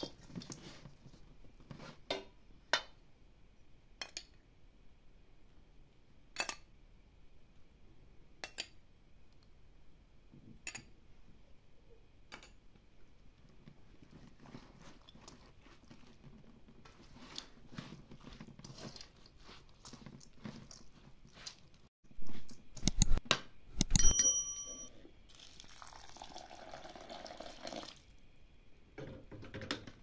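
Cooking pots and utensils being handled: scattered knocks and clinks every couple of seconds, then loud clanks about 23 s in, the last one ringing like struck metal. Water is poured briefly right after.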